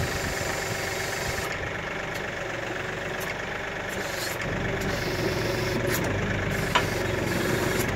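Kioti tractor's diesel engine idling steadily while working a tree spade, growing a little louder and deeper about halfway through. A single sharp click sounds near the end.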